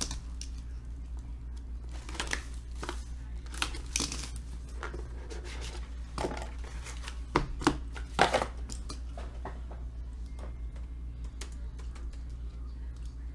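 Cardboard trading-card box being handled and torn open by hand: crinkling and tearing of the wrapper, with cardboard rubbing and tapping. The sharpest rustles come about six, seven and a half and eight seconds in, over a steady low hum.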